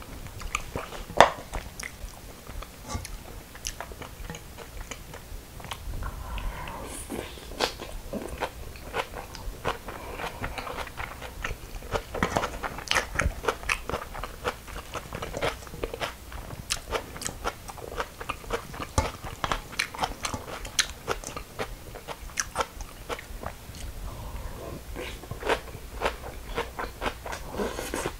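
Chewing and crunching of raw young radish greens (yeolmu) in bibimbap: a steady run of crisp, crackly bites from stems that are raw and not wilted.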